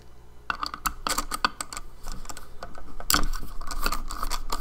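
Light clicks and scrapes of a screwdriver working on an opened hard drive's metal parts and screws, a quick irregular run of small clicks with a louder knock about three seconds in.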